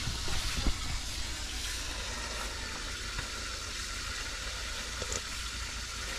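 Pot of soup cooking on the fire, giving a steady hiss.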